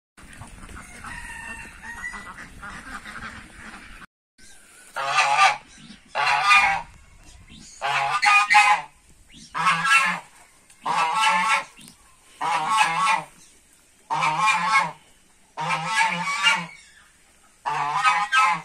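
Domestic goose honking over and over, a loud series of about ten long calls roughly one every second and a half, starting about four seconds in.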